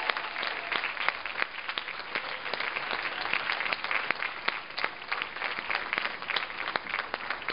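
Audience applauding: a dense patter of many hands clapping, with a few sharper claps standing out.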